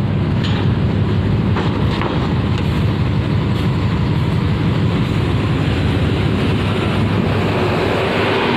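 Diesel coach engines running steadily as buses roll past, a continuous heavy low hum.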